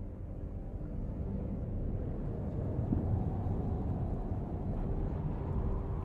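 Deep, steady rumble of a volcanic lava-field ambience in film sound design, swelling over the first second and then holding.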